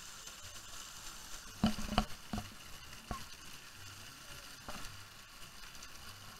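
Steady hiss of spraying and running water in a shallow water-park splash pool, with a few sharp knocks, most of them clustered about two seconds in.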